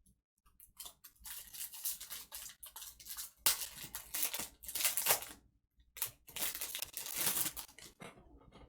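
Foil trading-card pack being torn open and crinkled, with the loudest rips and rustles in two stretches, around the middle and again in the second half.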